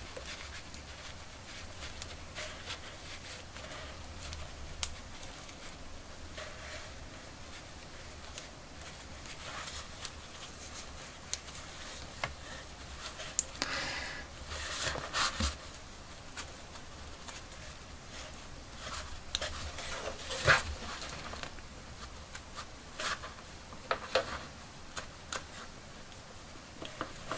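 Faint close handling noises of fingers working a toy doll's hair and elastic band: soft rubbing and rustling with scattered small clicks and taps, over a low steady hum.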